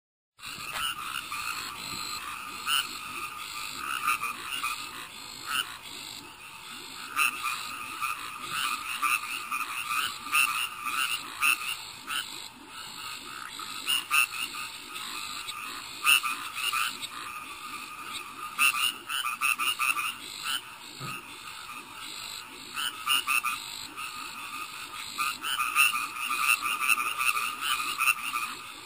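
Night chorus of many frogs and toads croaking together after rain, a dense, continuous mass of short overlapping calls.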